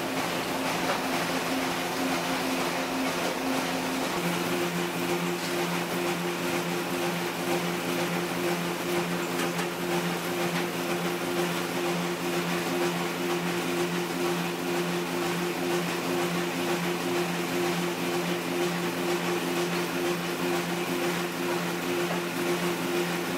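Motor-driven noodle dough sheeting machine running steadily, its rollers pressing the dough sheet and winding it onto a wooden rod: a constant machine hum whose tone shifts slightly about four seconds in.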